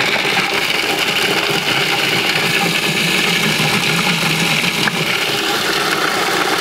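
Electric food processor running steadily, grinding chunks of hard Pecorino Romano sheep's cheese.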